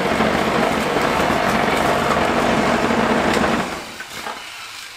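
Power drill driving a large hole saw through the garage wall: a steady grinding run that stops about three and a half seconds in as the saw cuts through.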